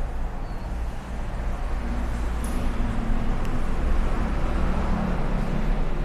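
Steady low rumble of road traffic with an engine hum, growing a little louder after about a second.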